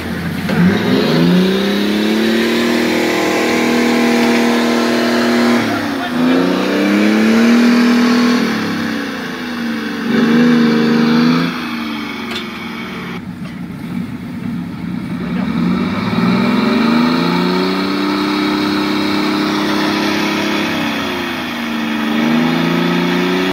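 Engine of a tube-frame prototype off-road buggy revving hard and dropping back, about five times, as it claws out of a mud pit and drives off.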